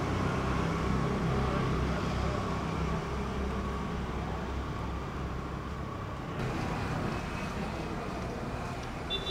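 Street traffic noise: a motor vehicle's engine gives a steady low rumble that fades over the first few seconds, leaving quieter road ambience.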